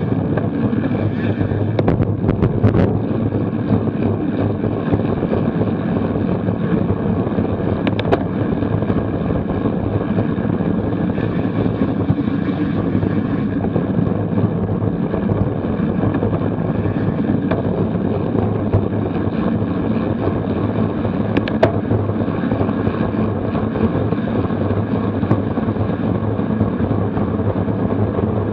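Wind rushing over a bike-mounted action camera's microphone while riding at road-race speed, a steady low rumble with no letup. A few sharp clicks stand out here and there.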